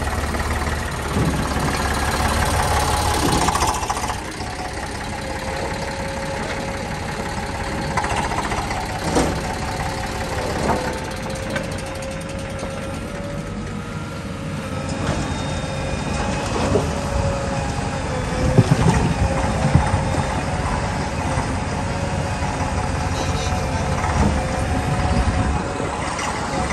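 JCB 3DX backhoe loader's diesel engine running steadily at work. A steady whine comes in about five seconds in, and scattered sharp knocks sound throughout, with a cluster a little past the middle.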